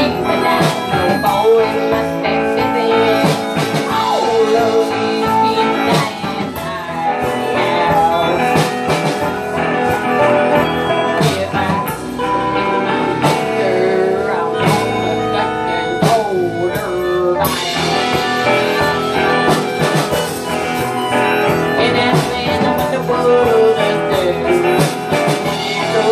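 Live band playing a song on electric guitars and mandolin, with bending lead notes.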